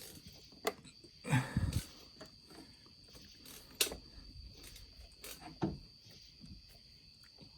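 Scattered light metallic clicks and knocks of hand work at a VW TDI engine as the injection pump is set with its lock pin, with a duller knock about a second and a half in. A faint steady high whine runs underneath.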